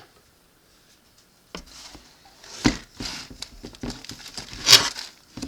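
Snack packages being handled: plastic wrappers rustling with light knocks as items are picked up and set down. It starts after a short quiet spell, and the loudest knock comes near the end.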